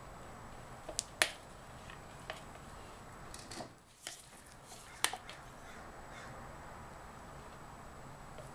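A few sharp clicks and taps from plastic pouring pitchers being handled and set against the mould, over a low steady room hiss; the loudest click comes about a second in.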